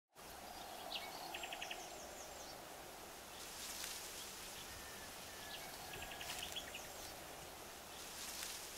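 Faint outdoor ambience with small birds chirping: a short burst of rapid high chirps about a second in, and another around six seconds in, over a steady quiet background.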